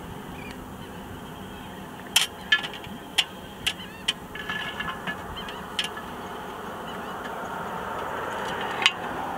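Sharp metal clinks and rattles as a steel lid-lifter frame is hooked onto a cast iron Dutch oven lid heaped with charcoal and the lid is raised: a quick run of clinks, then a last loud clink near the end, over a steady hiss that grows louder.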